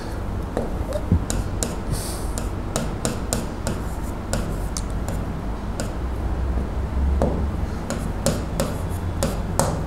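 Writing on a board: irregular sharp taps and short scratches as letters and plus signs are stroked out, over a steady low hum.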